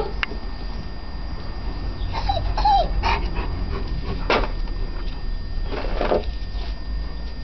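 German shepherd whining in a few short high whimpers about two seconds in, with several short scuffling noises as it noses at the ground, over a steady low rumble.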